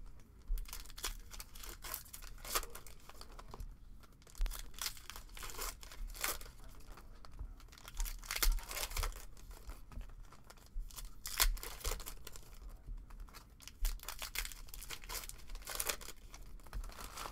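Foil trading-card pack wrappers being torn open and crinkled by hand, in irregular crackling rustles that come and go.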